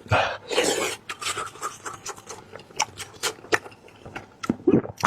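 Close-miked eating of braised lamb head: wet chewing, sucking and lip-smacking with many sharp clicks, and a few louder slurping smears near the start and near the end.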